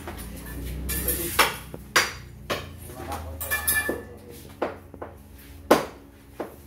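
Hammer chipping at a concrete wall: a series of irregular sharp knocks, some with a brief metallic ring.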